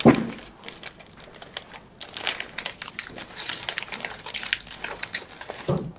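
Clear plastic packing bag crinkling and crackling in irregular bursts as a small sliding door roller is handled inside it. A single thump comes right at the start.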